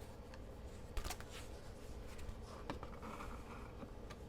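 Quiet handling of a paper album and its packaging: soft rustling with a sharp tap about a second in and a fainter one later.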